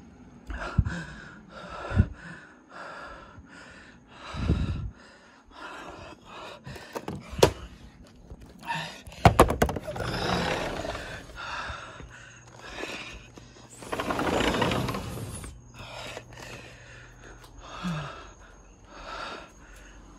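Heavy, rapid breathing close to the microphone, with a few sharp thumps and knocks and a longer rush of noise about two-thirds of the way through.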